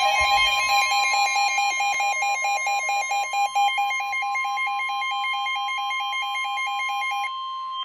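NOAA Weather Radio warning alarm tone, a steady high tone, sounding together with a rapidly pulsing electronic alarm beep. The pulsing stops near the end and the steady tone cuts off just after. It is the attention signal that announces a severe thunderstorm warning.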